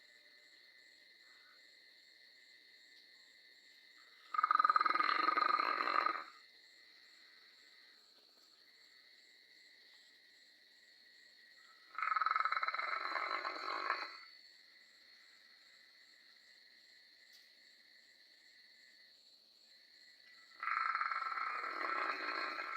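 A sleeping dog snoring: three long snores about eight seconds apart, each lasting about two seconds, over a steady high trill of insects.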